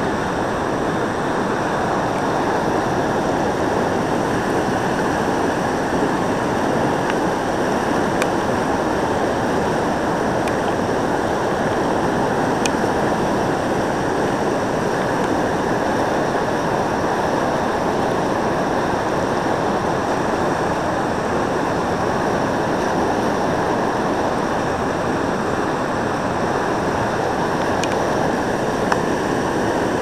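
Steady rush of whitewater in a river rapid, pouring over a low ledge close by.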